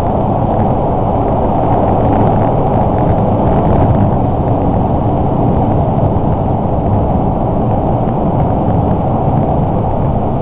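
Express train running through the Seikan Tunnel, heard inside the passenger car: a loud, steady, low rumble of wheels on rails and running gear, made heavier by the enclosing tunnel.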